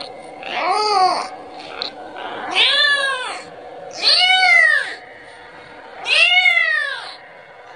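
A kitten meowing four times, about every one and a half to two seconds, each call rising and then falling in pitch: a kitten calling for its mother, wanting milk.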